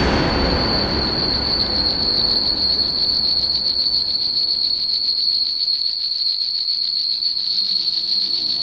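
A struck match flaring, its hiss fading away over the first few seconds, under a steady high-pitched ringing tone.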